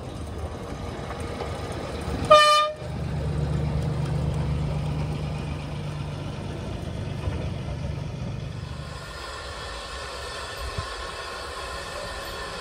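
Small narrow-gauge diesel locomotive giving one short toot on its horn about two seconds in, then its engine running with a low steady drone. Near the end the drone gives way to a quieter, steadier hiss.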